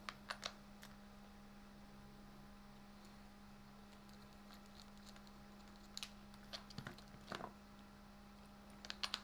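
Scattered light clicks and taps of small plastic and metal RC car parts being handled and fitted, a few at a time, over a steady low hum.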